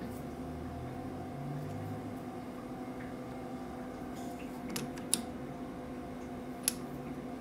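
Steady machine hum with three sharp metal clicks in the second half, from a chuck key working the jaws of a four-jaw lathe chuck while the part is trued against a dial indicator.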